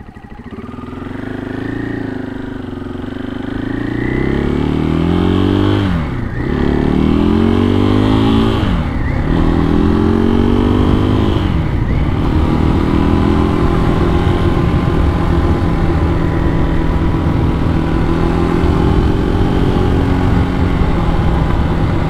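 Supermoto motorcycle engine accelerating through the gears on dirt tyres on wet pavement. The revs climb and drop back at three gear changes, then hold steady at cruising speed. The rear tyre was slipping under the acceleration.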